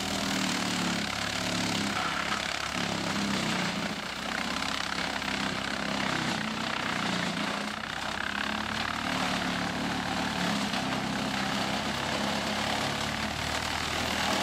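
Loftness Timber Ax Extreme PTO-driven tree and brush shredder running on a tractor, its rotor chewing into a brush pile while the tractor engine works under load: a steady, dense mechanical drone with a low hum that wavers in pitch.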